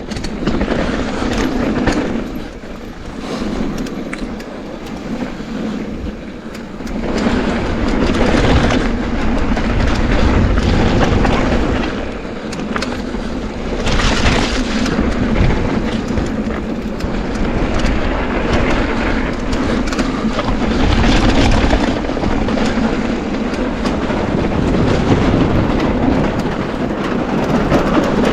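Mountain bike rolling fast down a bike-park trail: tyres rumbling on dirt, with the bike rattling over bumps, in swells that come and go every few seconds.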